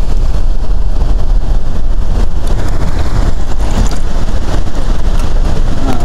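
Wind buffeting the microphone: a loud, steady low rumble with no clear tone.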